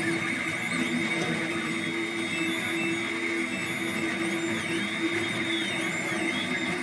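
Monoprice Select Mini 3D printer printing: its stepper motors whine in tones that keep shifting and rising and falling in pitch as the print head moves, over a steady hum.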